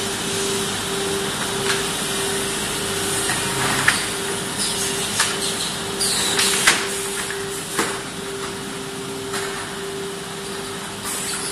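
Finger-joint line woodworking machine running: a steady motor hum with a faintly pulsing tone, with scattered clicks and clanks and a few short hisses in the middle.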